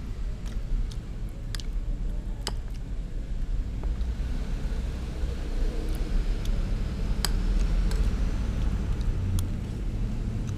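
A steady low rumble with a few sharp clinks of a metal spoon against a glass plate of rice, the clearest about seven seconds in.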